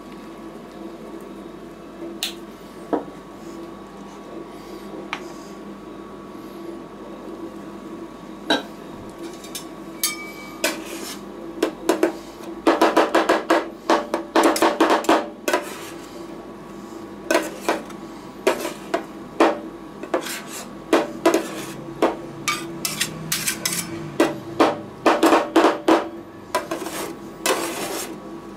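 Two metal spatulas chopping and scraping Red Bull ice cream mix on the steel freezing plate of a rolled-ice-cream machine: a few single knocks at first, then rapid runs of metal clinks from about twelve seconds in. Under it the machine's refrigeration unit hums steadily.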